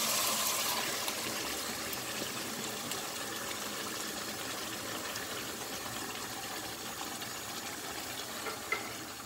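Canned red kidney beans with their liquid poured into a hot pot of simmering sauce, giving a steady wet sizzle that eases slightly. There is a light tap near the end.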